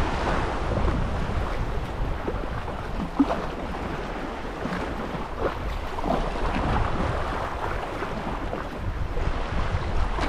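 Wind buffeting the microphone as a steady low rumble over small waves washing against a rocky shore, with a brief tap about three seconds in.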